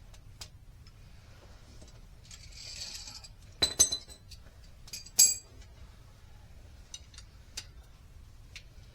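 Metal hardware clinking under a vehicle: two quick ringing clinks, then a louder one about a second and a half later, with a few faint ticks and clicks around them.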